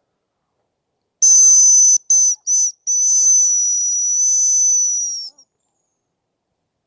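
High, thin hazel grouse whistle call: a long steady note, two short ones, then one long held note of about two and a half seconds.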